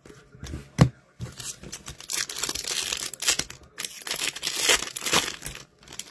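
Foil wrapper of a hockey card pack being torn open and crinkled in the hands: a dense crackling that runs for several seconds. It comes after a single knock about a second in.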